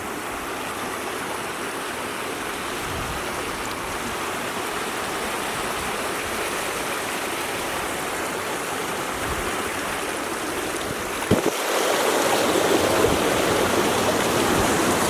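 Water of a river running over rocks, a steady rush that grows louder about eleven seconds in.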